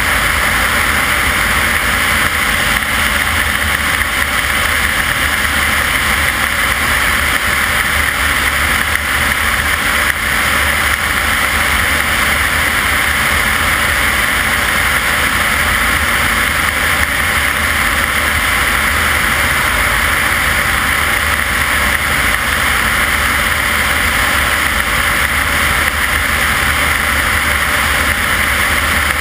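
Steady rush of airflow over an externally mounted camera on a light aircraft in flight, with the propeller-driven engine droning low underneath. It holds level throughout, with no change in power.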